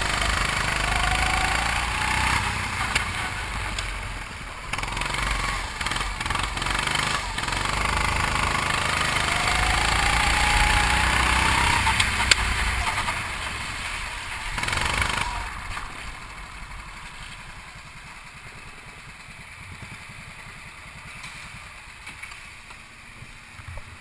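270cc go-kart's single-cylinder four-stroke engine running and revving, its pitch rising for a few seconds as it accelerates. The engine noise falls away about fifteen seconds in, leaving a quieter steady hiss.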